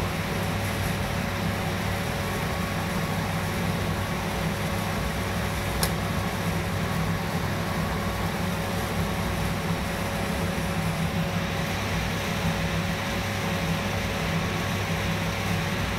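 Steady mechanical hum with a constant low drone and one faint steady tone above it, and a single sharp click about six seconds in.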